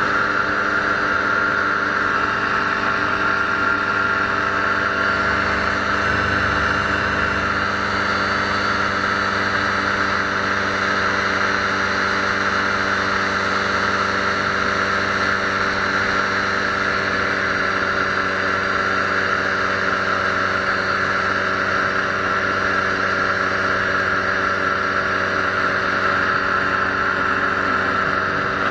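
Paramotor engine and propeller running steadily at flight power, an even unbroken drone with no change in pitch.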